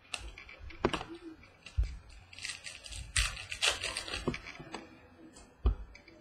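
Trading cards and their packaging being handled: rustling, sliding and scraping with light clicks and a couple of soft thumps on the table.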